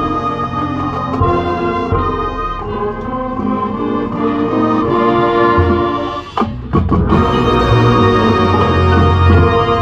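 Marching band playing its field show: sustained brass chords over front-ensemble mallet percussion and drums. About six and a half seconds in the sound breaks off briefly, then the full band comes back in louder with heavy low brass and drums.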